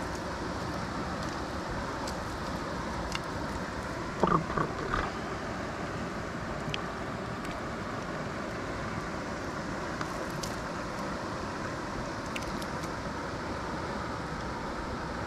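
Steady rush of flowing river water, with a brief louder sound about four seconds in.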